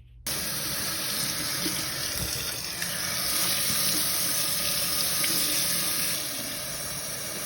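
Water running steadily from a tap, starting suddenly just as the tap is opened: hot water being run to fill a container for flushing out a clogged freezer drain.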